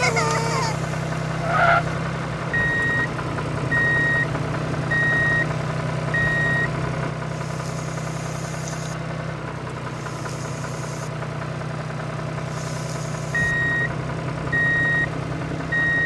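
Mini bulldozer running with a steady engine drone, and a high reversing beep repeating about once a second: four beeps a few seconds in, then three more near the end.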